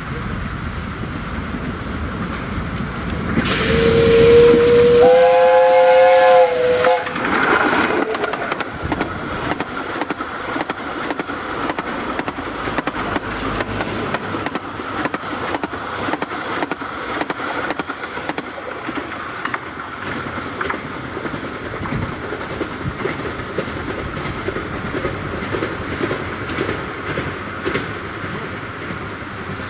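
A 15-inch-gauge steam locomotive sounds its whistle for about three seconds over a loud rush of steam as it comes up the line. After that comes a long, steady rattle and clatter of its carriages' wheels running past on the track.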